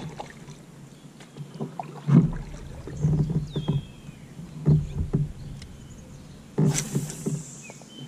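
Kayak paddling: a paddle dipping and splashing in the water in uneven strokes, with knocks against the kayak, the sharpest, hissiest splash near the end.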